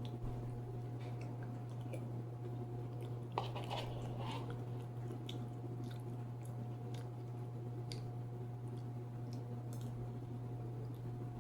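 A person chewing and biting food close to the microphone, small wet clicks and crunches, with one sharper click about three and a half seconds in. A steady low hum and a faint high tone run underneath.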